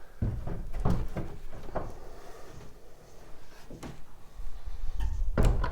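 Antique pine wardrobe's wooden doors being handled and shut: a series of knocks and clicks from the doors and catches, with a heavier wooden bump near the end.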